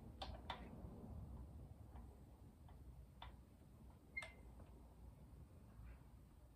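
Near silence broken by about half a dozen faint clicks and ticks, the sharpest about four seconds in. They come as the crankshaft pulley of a Porsche 911 2.5 MFI flat-six is nudged round by hand in tiny steps against the tension of the cam chain.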